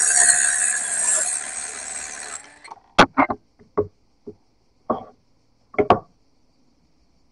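A workshop power tool runs and winds down over the first couple of seconds, then a handful of sharp knocks and clinks, like tools or the cleaver being handled on a bench.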